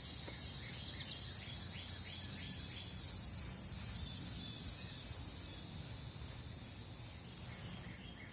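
High-pitched buzzing chorus of summer insects, louder until about halfway through and then fading, over a low rumble.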